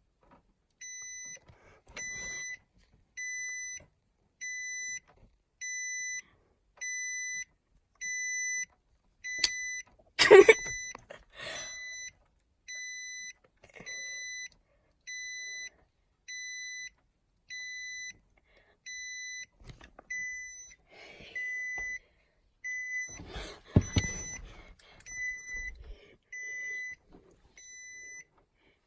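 2017 Nissan Armada's electronic warning beep sounding over and over at an even pace, a short high beep about every 1.2 seconds. A louder sudden noise breaks in about ten seconds in, and a cluster of knocks comes near the end.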